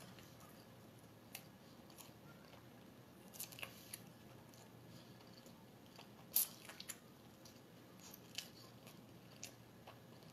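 Faint chewing of a fried chicken sandwich: scattered soft mouth clicks and smacks, the loudest about six seconds in.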